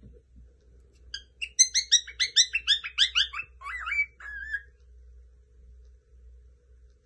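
Cockatiel chirping: starting about a second in, a quick run of short repeated chirps, about six a second, lasting around three seconds and ending in a couple of longer whistled notes.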